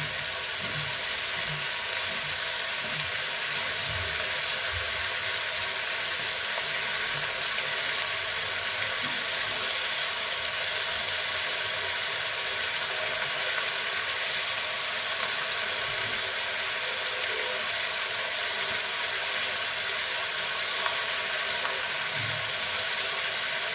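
Chopped vegetables sizzling steadily in hot oil in an iron kadhai on a gas stove.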